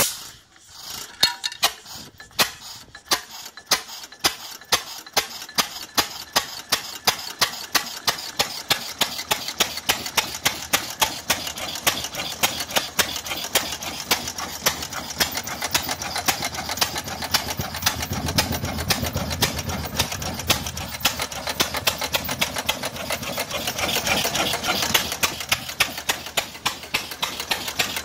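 Bovaird & Seyfang 5 hp hit-and-miss stationary engine running on its first start: sharp firing pops about two to three a second over a steady rapid clicking.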